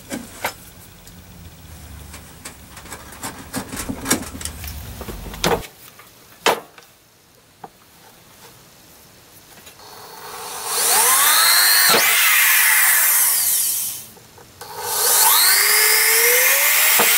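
Scattered handling clicks and knocks, then a power drill boring through the targe's face in two loud bursts, the first about ten seconds in and the second after a short break. As the bit cuts, a whine slides up and down in pitch.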